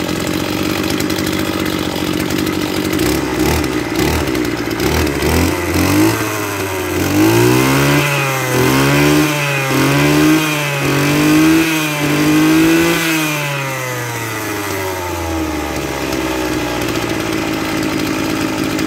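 Maruyama JCN26DT brush cutter's small 26 cc two-stroke engine idling, then revved up and down several times with the throttle, the pitch rising and falling with each blip, before it glides back down to a steady idle.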